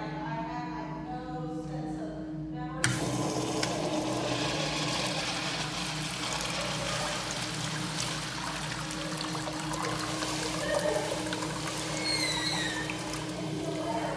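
Kohler Branham urinal flushing through its chrome flushometer valve: a sharp click about three seconds in, then water rushing and pouring steadily down the bowl. A few short falling chirps sound near the end.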